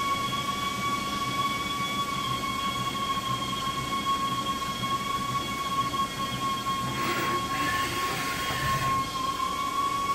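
Vertical alloy-wheel lathe giving a steady high-pitched whine, with a brief scraping noise about seven seconds in.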